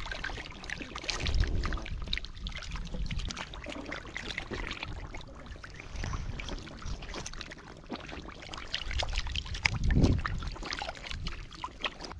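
Shallow muddy water splashing and sloshing, full of small clicks, with louder low thumps about a second and a half in and again about ten seconds in.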